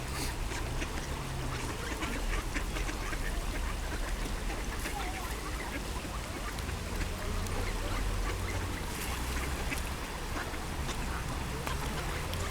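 A large flock of mallard ducks quacking and chattering, many calls overlapping without a break, over a steady low rumble.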